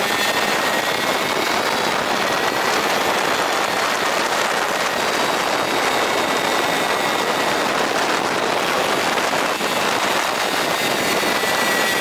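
Steady wind rush and engine noise from riding a moped, with a faint steady whine over it; the video cuts in and out abruptly.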